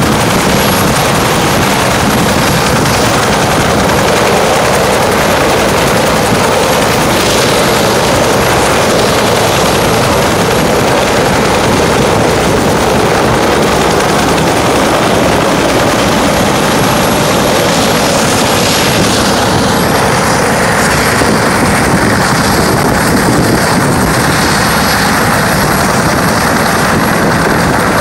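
Helicopter flying close by and climbing away, its rotor and turbine noise loud and steady. The high hiss thins out about twenty seconds in as it gains distance.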